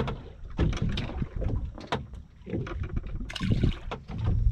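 Small waves slapping and lapping against the hull of a stationary center-console fishing boat, with irregular knocks and wind gusting on the microphone.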